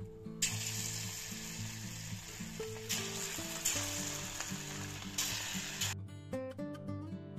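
Hot oil in an aluminium kadai sizzling as batter-coated colocasia (taro root) pieces are dropped in to deep-fry. The sizzle flares a couple of times and cuts off about six seconds in. Guitar background music plays underneath.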